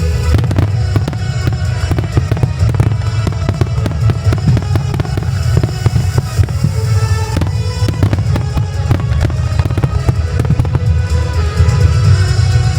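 Dense fireworks barrage: rapid sharp shell bursts and reports, several a second, over a heavy low rumble, mixed with loud music.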